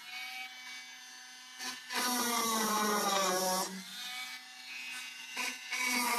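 Small electric drill running in short bursts while driving small screws, its pitch sinking as it bears into the material. It runs twice: about two seconds in for under two seconds, and again at the very end, with a low hum between.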